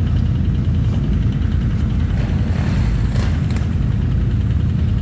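ATV engine running steadily: a deep, even rumble with a faint fast ticking above it.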